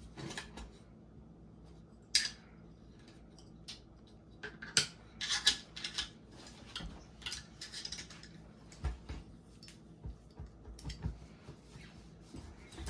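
Irregular metal clicks, clinks and light scrapes of AR-15 rifle parts being handled and fitted together during reassembly, with sharper clacks about two seconds and about five seconds in.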